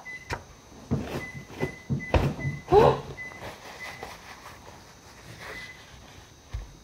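Close-up handling noise: a quick series of knocks, bumps and rustles as things are moved around on a table, loudest about three seconds in, then quieter fumbling.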